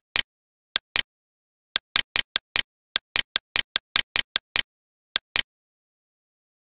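Computer mouse clicking: a quick, irregular run of about twenty sharp clicks, many in close pairs, densest in the middle and stopping about a second before the end. Each click places a point of a roto shape in compositing software.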